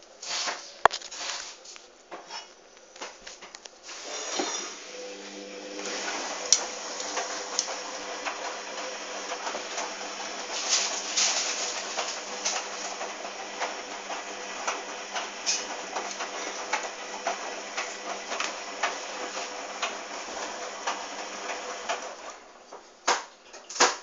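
Hoover front-loading washing machine taking in water for the final rinse: a steady hiss of water with a low hum starts about four seconds in and stops shortly before the end. Irregular knocks and sloshing from the drum come before and after it.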